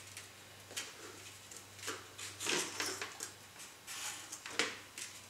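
Faint scattered light knocks and rustles of hands handling foam-board pieces against a hard floor, over a low steady hum.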